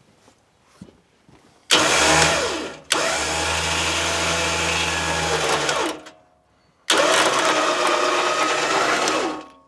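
Winch motor running in two pulls of a few seconds each, separated by a short pause. It is winding in cable to drag the truck in first gear and turn its engine, so that the flywheel's missing teeth move past the starter.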